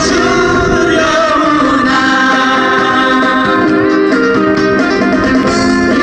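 Acoustic and electric guitars strumming and playing a song live, with singing.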